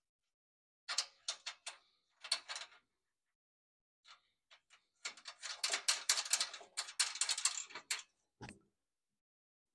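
Hand tools working on the mower's engine: short runs of sharp metallic clicks, then a longer stretch of rapid clicking and rattling, and a single dull thump near the end.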